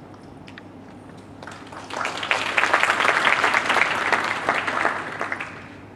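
Audience applauding a speaker's introduction: the clapping starts about a second and a half in, builds, and dies away near the end.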